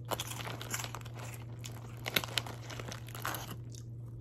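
Plastic snack bag crinkling as a hand rummages inside it for a piece, a run of uneven crackles with the loudest a little past two seconds in.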